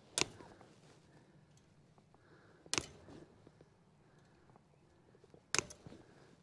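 Three sharp clicks or snaps from hand-tool work at a wire fence, spaced about two and a half to three seconds apart, over a faint outdoor background.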